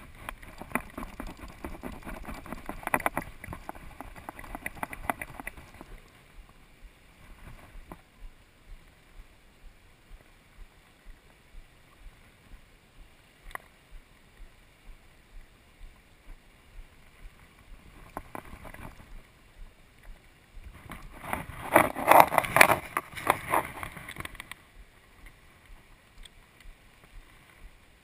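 Water splashing and sloshing while a hooked fish is played on a fly rod in a river. There are two loud spells of splashing, one at the start and one about three-quarters of the way through. Between them come faint, regular ticks, about one and a half a second.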